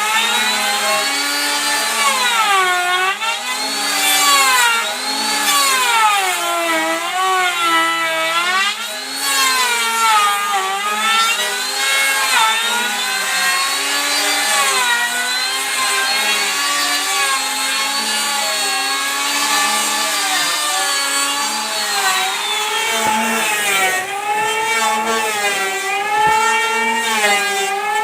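A woodworking power tool's motor running through wood, its pitch rising and falling every second or two as the cut loads and releases it, with a hissing cutting noise above it.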